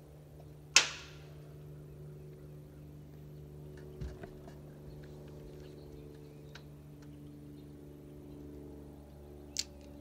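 A steady low electric hum, with a sharp loud click about a second in, a dull thump around four seconds and a smaller click near the end.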